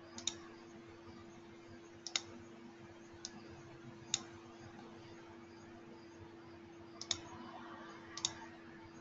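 Computer mouse clicks: about six sharp single clicks at irregular intervals, a couple of them doubled, over a faint steady hum.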